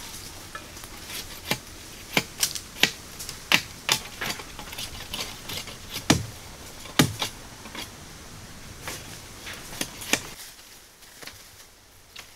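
Bamboo being chopped and split with a blade: irregular sharp knocks and cracks, several a second, with two heavier thuds about six and seven seconds in. The knocking stops about ten seconds in.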